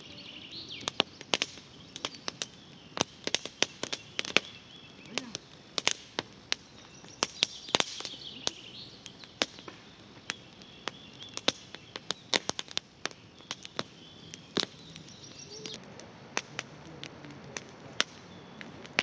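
Wood fire crackling and popping with many sharp, irregular cracks, while small birds chirp now and then.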